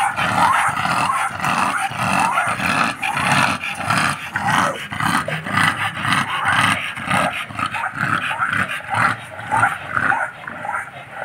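American bully dogs growling in rough play, a throaty rhythmic growl pulsing about three times a second.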